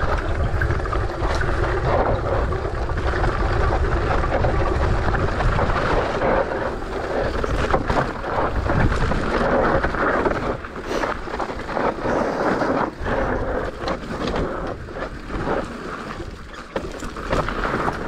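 Mountain bike riding down a loose dirt trail: wind on the microphone and steady tyre noise, with the bike rattling and knocking many times over rough ground.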